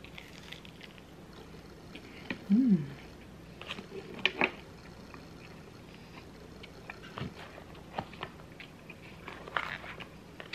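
Close-miked chewing of a bite of cauliflower-crust pizza, with soft mouth clicks and a short hummed "mm" about two and a half seconds in. A few light clicks and scrapes follow near the end as a metal fork picks fries from a foam takeout container.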